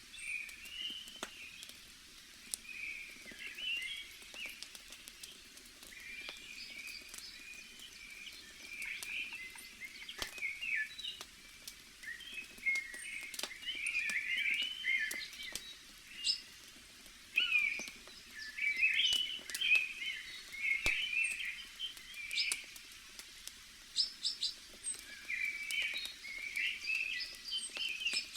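Forest birds chirping and warbling in quick busy phrases throughout, over a faint hiss of ambience, with scattered sharp crackles and pops from a campfire.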